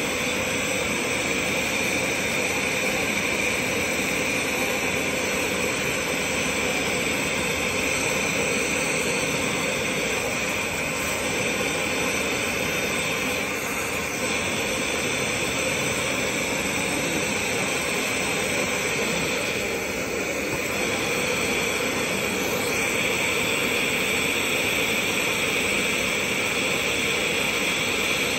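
Glassworker's bench torch burning steadily: the oxygen-fed gas flame used for melting glass rods gives a continuous, even hiss.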